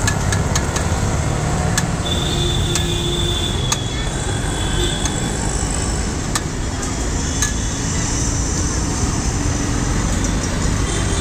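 Steady street traffic noise, with a few sharp clinks of steel spoons against steel bowls and plates.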